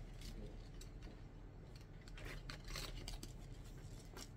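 Leather handbag strap being handled and worked through its fittings: a few short scraping, rustling strokes, bunched about two to three seconds in, with one more near the end.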